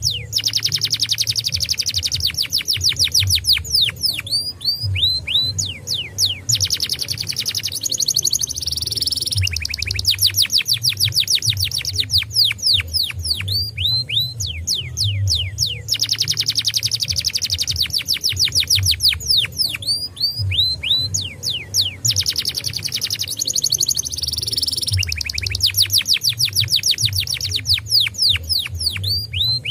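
Domestic canary singing long, rapid trills of quick downward-sweeping notes, in phrases of a few seconds with short breaks between them, over a faint low rumble.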